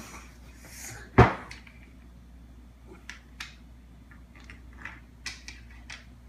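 One loud knock about a second in, then scattered light clicks and taps, like small objects being handled and set down on a table.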